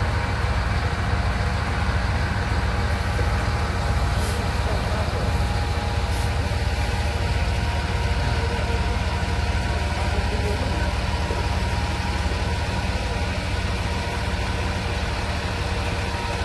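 Flatbed truck's engine idling steadily, with no revving.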